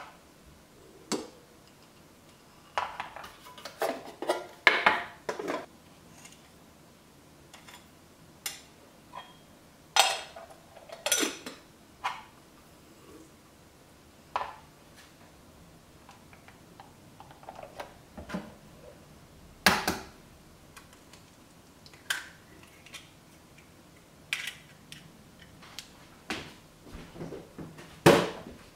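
Scattered clinks, taps and knocks of containers and utensils against a stainless steel stand-mixer bowl and the worktop as baking ingredients are tipped in, with soft pouring and rustling between; the loudest knock comes near the end.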